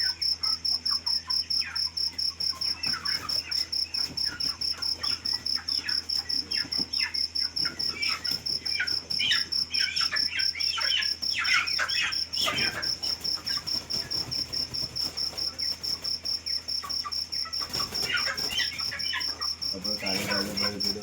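A cricket chirping in a steady, rapid high-pitched pulse throughout, with chickens giving short calls over it, busiest in the middle and again near the end.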